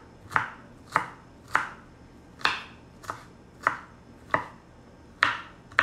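Kitchen knife chopping garlic cloves on a wooden cutting board: about nine separate knocks of the blade hitting the board, at an uneven pace of roughly one every half second to second.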